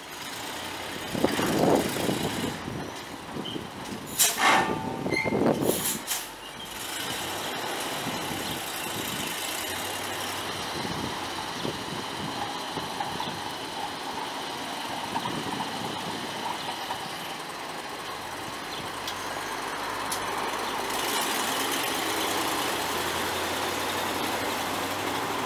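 The 1980 GMC 7000 fire truck's eight-cylinder gas engine running steadily, after several short loud bursts of noise in the first six seconds. The engine gets a little louder about 21 seconds in.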